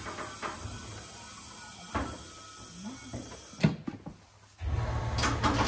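Hand work on a garden tractor: several sharp clicks and knocks of tools and parts being handled. Under them runs a low steady hum that cuts out briefly a little past the middle and then comes back.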